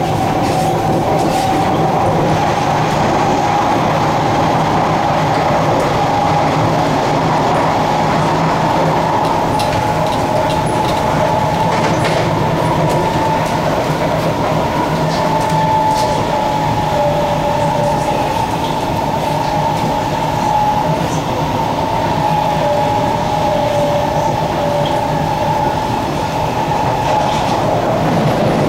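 SMRT C151C Kawasaki-CRRC Sifang electric multiple unit running at speed between stations, heard from inside the passenger car: a steady rumble of wheels on rail with a faint whine that wavers slightly in pitch and a few light clicks.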